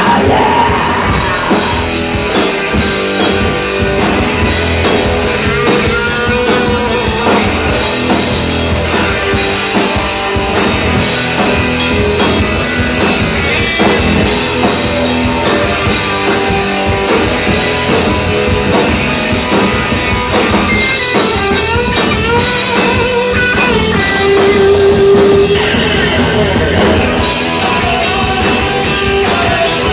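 Live punk rock band playing at full volume: electric guitar, bass guitar and drum kit, unbroken.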